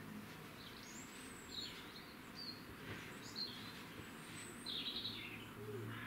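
Eurasian wren singing: a run of high, quick notes and short glides, with a denser, louder burst about five seconds in.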